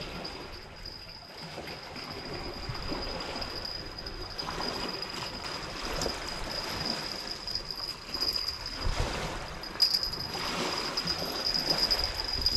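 A cricket's steady high trill over the soft wash of sea water at the shore, with a few faint knocks.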